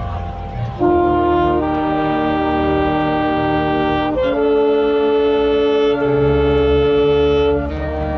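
High-school marching band's brass and saxophones playing long held chords. They enter loudly about a second in and move to a new chord three times.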